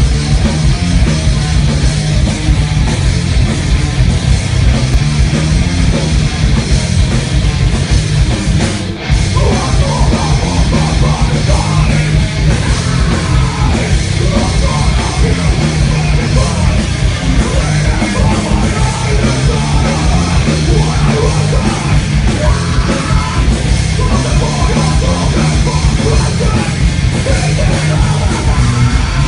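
Live heavy metal band playing loud distorted electric guitars and drums, with shouted vocals. The music cuts out for a moment about nine seconds in, then crashes back in.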